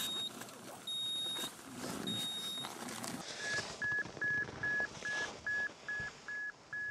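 Three long high-pitched beeps about a second apart from a Mobile Control Unit MCU 16, the remote controller that switches buried avalanche transceivers on, as its START/STOP key is pressed. Then, a little past halfway, a handheld avalanche transceiver (ARTVA) in search mode beeps in a quick, even rhythm of short lower tones, about two and a half a second, as it picks up a buried transmitter's signal.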